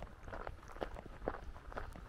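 Footsteps crunching on a gravel lane at a steady walking pace, about two steps a second.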